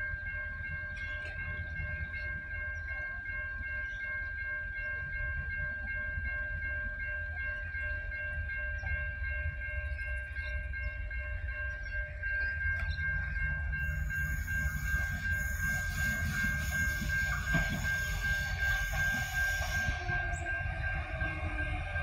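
A 3000/3100 class diesel railcar approaching and slowing into a station: its low rumble grows from about halfway, and a harsh high hiss from the wheels and brakes runs for several seconds before stopping near the end. A steady high-pitched tone sounds all the while.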